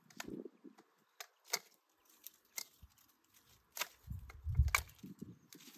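Long-handled loppers cutting tree branches: a series of sharp snips and cracks of wood, about six in all, with a louder low thump and rustle of leaves about four and a half seconds in.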